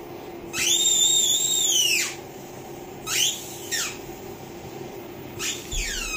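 Squeaky toy ball squeezed flat, its squeaker giving one long high whistle about half a second in, two short squeaks around three seconds, and falling squeaks near the end as the ball fills back up with air.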